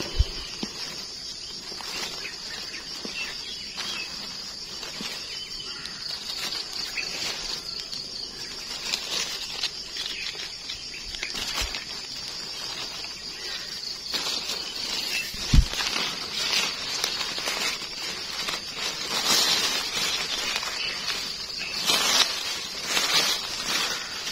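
Dry leaf litter rustling as gloved hands dig out and pick a cluster of termite mushrooms, over a steady high insect chorus; a single dull thump about two-thirds of the way through.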